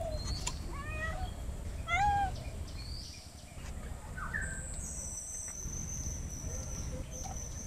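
An animal calling a few times, short calls that rise and fall in pitch, the loudest about two seconds in, over a low steady background rumble. A thin steady high-pitched whine comes in about five seconds in.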